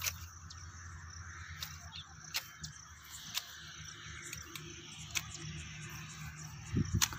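Outdoor ambience: a steady low hum and faint hiss, with a few scattered sharp clicks.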